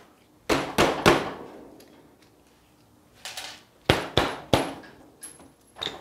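Sharp knocks and clanks with a short ring as the loosened wheel of a Propel X4s electric off-road skateboard is worked loose on its axle. There are three knocks about half a second in, then a quiet gap, then a run of four more knocks around four seconds in.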